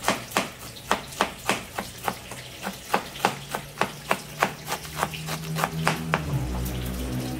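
Large kitchen knife shredding cabbage on a plastic cutting board: quick, regular chops, about three a second. The chopping stops shortly before the end, as a low steady hum rises.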